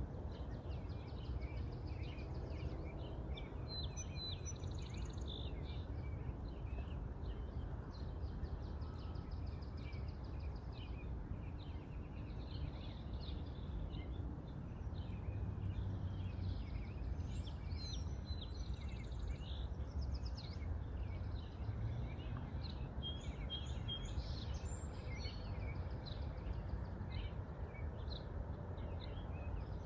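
Small birds chirping and trilling on and off over a steady low rumble of background noise.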